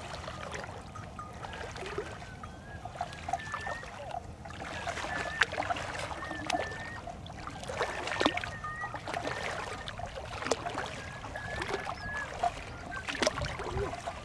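Legs wading through shallow flood water in a grassy paddy, irregular sloshing splashes with each stride. Short high calls repeat in the background.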